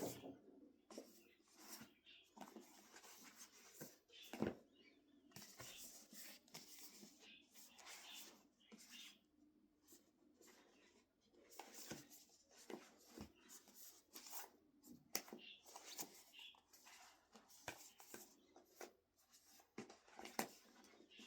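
Faint rustling, crackling and light tapping of books and their packaging being handled and unwrapped, with one louder knock about four seconds in.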